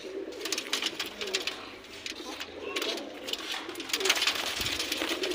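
Domestic pigeons cooing in a wire cage, with repeated sharp flutters of wings and scuffling among the birds.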